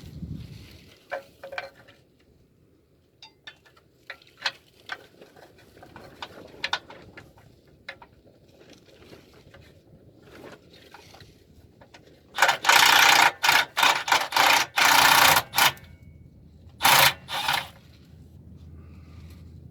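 Scattered clicks and taps of tools on metal, then a power ratchet run in several short, loud bursts, spinning out the 10 mm bolts of a Subaru EJ25 oil pan, with one more brief pair of bursts a few seconds later.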